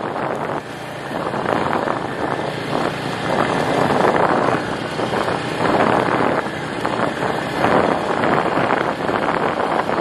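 Wind buffeting the microphone, rising and falling, over the steady run of a small vehicle's engine travelling slowly.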